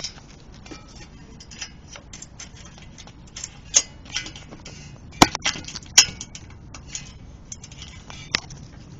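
Metal hand tools and engine parts clinking and knocking irregularly, as a wrench works the muffler's bolts, with two sharper clanks about five and six seconds in.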